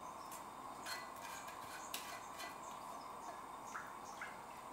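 Faint, irregular light ticks and clinks of a utensil scraping browned stock residue out of a small stainless-steel saucepan into a stockpot, over a steady faint hiss.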